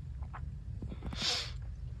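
A girl coughs once, a short breathy cough a little over a second in, after a few small throat sounds.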